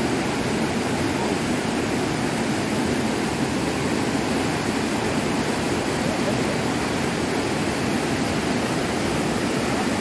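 Waterfall cascading over rock slabs: a steady, even rush of water with no breaks.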